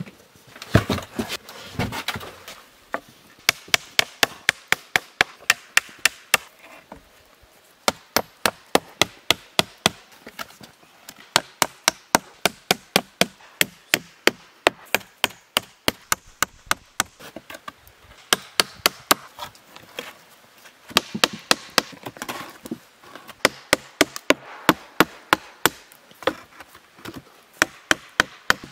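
Hammer driving nails into wooden boards laid on a pallet: runs of sharp strikes at about four a second, with short pauses between nails.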